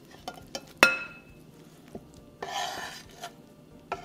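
Lobster meat being scraped off a wooden cutting board into a glass mixing bowl: a few light clicks, then one sharp clink that rings briefly about a second in, like a utensil striking the glass bowl. Later comes a scraping rasp lasting about a second as the meat is pushed off the board.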